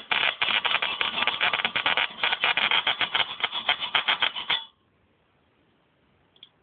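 High-voltage arcing from a 555-timer-driven car ignition coil running off a 12 V battery: a fast, irregular crackle of sharp snapping sparks that cuts off suddenly about four and a half seconds in.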